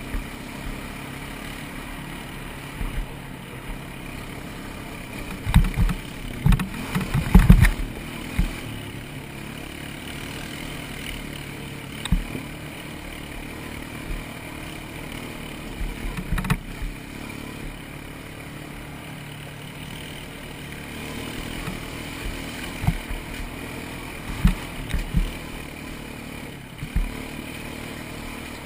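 ATV (quad) engine running steadily while riding a trail, with repeated low thumps and clatter from the machine jolting over rough ground, heaviest around six to eight seconds in.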